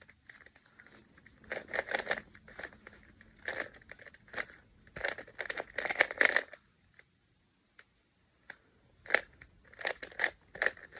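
Plastic Rubik's cube being turned fast, its layers clacking in runs of quick clicks, with a pause of about two seconds in the middle.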